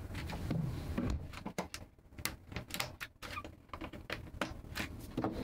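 A scatter of light clicks, taps and knocks as the lid of a Bushman chest freezer is swung shut and its foil-insulated top is pressed and handled.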